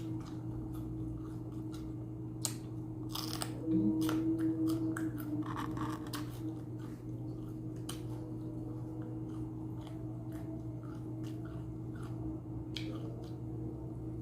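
Close-up eating sounds: chewing and biting into a chicken shawarma wrap with fresh vegetables, with irregular wet crunches and mouth clicks. A steady low hum runs underneath.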